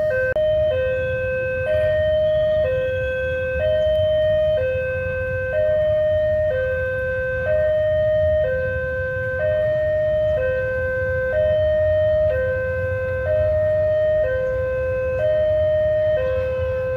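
Railway level-crossing warning alarm sounding a two-tone electronic chime, a high note and a low note alternating, each held about a second, signalling an approaching train. A low rumble of traffic lies underneath.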